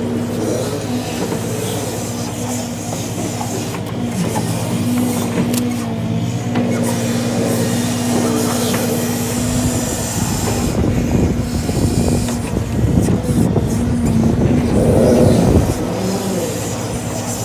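Log truck's diesel engine running at a steady speed to drive the knuckleboom log loader's hydraulics. From about ten seconds in, a louder rumbling clatter of pine logs knocking together as the grapple sets them down in the rail car, loudest near the end.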